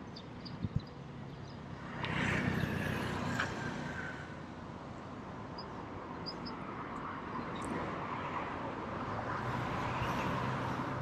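Street traffic: a motor vehicle passing in the lane. The noise swells abruptly about two seconds in, fades, then builds again toward the end as another vehicle approaches.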